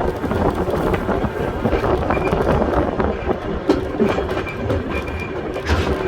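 Volk's Electric Railway car running along the track: a steady rumble of wheels on rail with occasional sharp clicks from the rail joints.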